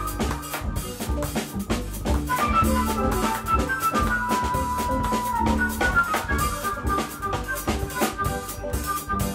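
A small jazz band playing live: a busy drum kit with bass drum and rimshots under an electronic keyboard and other melodic instruments, one note held for about a second and a half midway.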